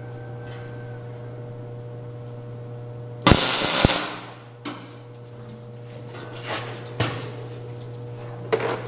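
A single MIG tack weld about a third of the way in: a loud, crackling hiss lasting about half a second as a boxing plate is tacked to a Jeep frame rail. It sits over a steady low hum, and a few light knocks follow.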